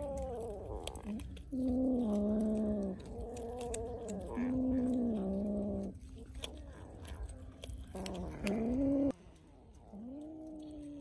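A cat making about five drawn-out, wavering meow-growls while eating raw fish, with small clicks between the calls.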